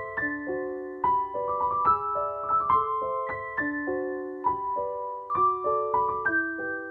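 Background music: a gentle piano tune of struck notes and chords, a few to the second, each ringing on and fading.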